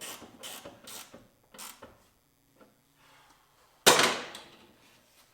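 Four short scraping rustles of handling, then one loud sudden metal bang about four seconds in that rings away over about a second, from body work on the pickup truck's doors and rocker panels.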